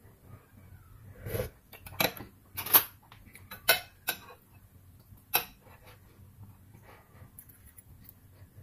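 Metal fork and spoon clinking against a glass bowl while stirring and eating noodles: about six sharp clinks, irregular, in the first five or so seconds.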